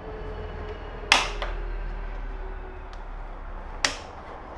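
Mount-it MI-7211 aluminium laptop stand's adjustable arm joints clicking into place as they are repositioned: a sharp, loud click about a second in and a lighter one near the end.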